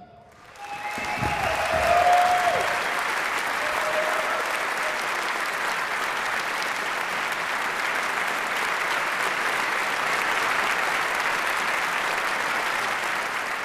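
Concert-hall audience applauding, swelling up within the first couple of seconds and then holding steady, with a few cheers early on.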